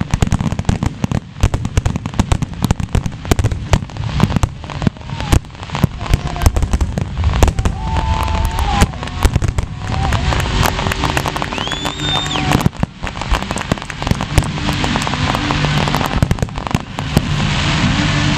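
Fireworks finale: many shells bursting in rapid, overlapping bangs and crackle, densest in the first few seconds and continuing throughout.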